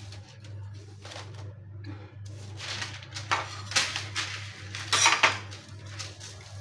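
Sheet of baking paper rustling and crinkling as it is handled and pressed flat by hand onto a stone board, in several loud brushing bursts in the second half, over a low steady hum.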